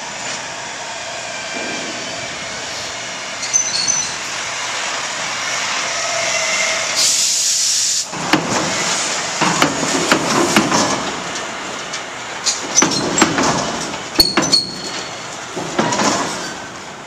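Loaded log truck driving across a ferry's steel transfer-span apron, its diesel engine running. There is a short burst of air-brake hiss about seven seconds in, followed by repeated clanks and thumps as the truck's wheels roll over the ramp plates.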